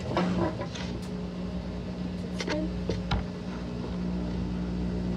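Maytag top-load washing machine running with a steady electric hum, with a couple of faint clicks a little past the middle.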